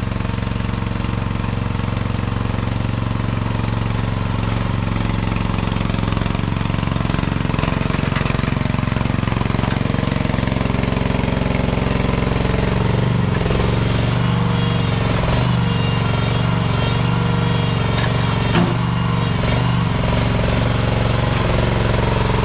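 Gas-powered mini excavator's engine running steadily as the machine digs. Its note shifts and wavers as the hydraulics are worked during the second half, with a single sharp knock about 18 seconds in.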